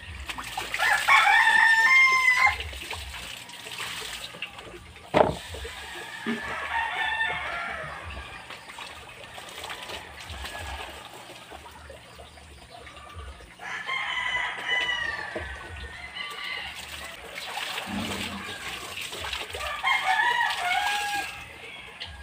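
Roosters crowing: four long crows spaced about six seconds apart, the first the loudest. A single sharp knock sounds about five seconds in.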